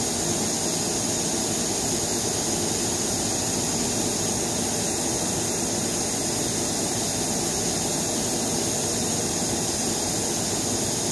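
Steady hiss of compressed air driving the solid-state CPMAS probe's magic-angle-spinning rotor, with an even high-pitched whine over it.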